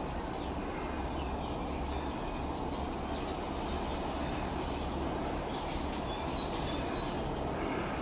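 Steady low background rumble, with a few faint, short high bird chirps about halfway through.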